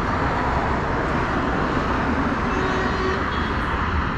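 Steady wind and road noise from a superbike ridden at highway speed, the engine running under a constant rush of wind.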